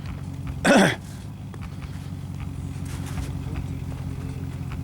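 Off-road vehicle's engine idling steadily, with a short loud shout just under a second in.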